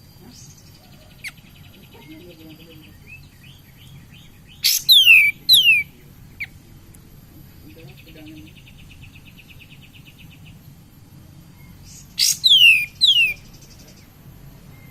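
Kapas tembak, a bulbul, singing: two loud bursts of quick whistled notes, each sliding downward, about five seconds in and again near the end. Softer rapid chattering trills fill the gaps between them. This is the full, lively song used as a lure call to stir up other kapas tembak.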